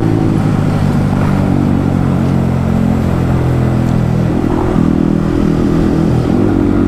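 Yamaha MT-15's single-cylinder engine running through an Akrapovic exhaust while riding. Its pitch falls steadily for the first few seconds as the throttle comes off, then rises again about four seconds in and holds steady.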